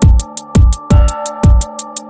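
Electronic background music with a fast, steady beat: deep bass kicks, rapid hi-hat ticks and a held synth chord.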